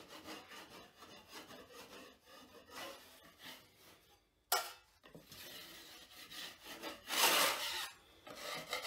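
Hand scraper blade scraping ridges of dried quick-setting joint compound off a drywall ceiling in irregular strokes, with one sharp knock about four and a half seconds in. The strokes are loudest near the end.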